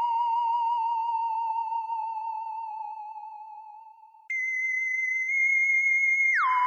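Electronic sci-fi 'alien' sound effect: a theremin-like warbling tone fades away, then a higher steady tone cuts in about four seconds in and slides back down to the lower warble near the end.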